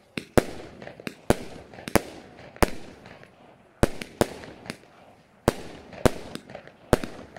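Consumer firework battery (cake) firing aerial shots that burst overhead: about a dozen sharp bangs at uneven spacing, roughly one every half second to second, each with a short decaying tail.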